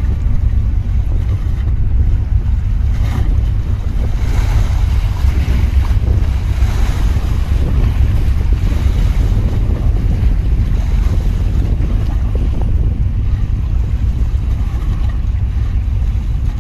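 Wind buffeting the microphone with a steady low rumble, over choppy water washing around a small boat.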